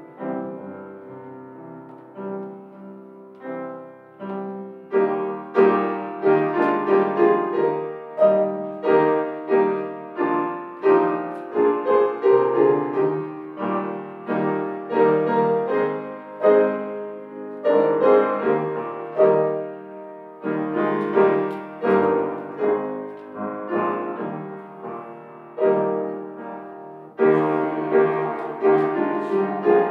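Grand piano playing, softly for the first few seconds and then fuller, with many struck notes ringing and fading.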